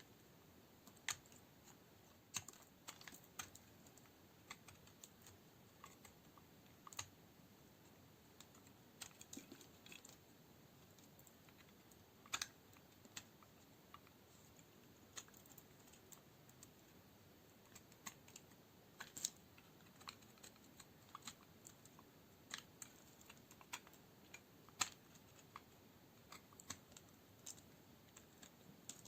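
Dry bar soap being cut into cubes: a steady string of sharp, irregular crisp clicks and cracks as the blade breaks through the hard, dried soap, a few of them much louder than the rest.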